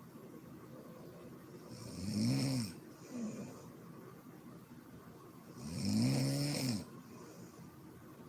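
A sleeping woman snoring: two loud pitched snores, each rising and then falling in pitch, about four seconds apart, with quieter breathing between them.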